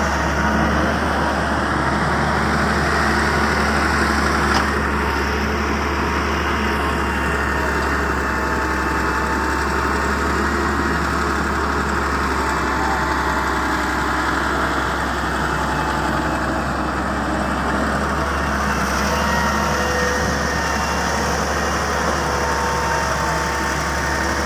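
Heavy diesel engine of an excavator running steadily with a constant low hum.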